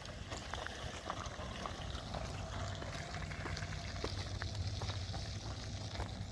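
Steady low outdoor rumble with scattered faint clicks and ticks.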